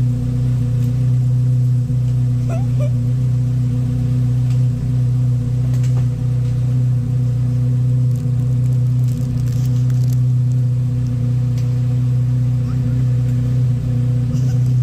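2024 Corvette Z06's 5.5-litre LT6 flat-plane-crank V8 idling through the stock exhaust, a steady low drone.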